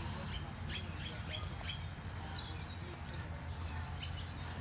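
A bird chirping: a quick run of short, high, falling chirps for the first couple of seconds, and a few more about three seconds in, over a steady low rumble.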